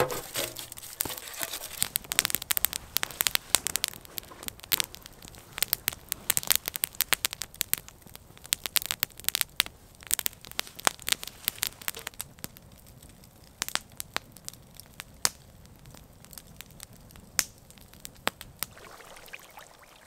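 Wood campfire crackling and popping, many sharp snaps over a low steady hiss, dense at first and thinning out in the second half.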